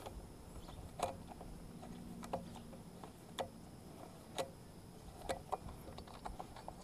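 Wrench clicking as it works loose an 8 mm bolt on a motorcycle's front sprocket cover: sharp, separate ticks roughly once a second, irregularly spaced.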